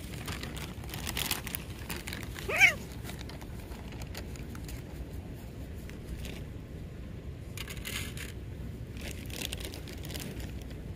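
A cat gives one short, sharp cry about two and a half seconds in, rising then falling in pitch: a squabble between two cats over food. Soft rustling and crinkling around it.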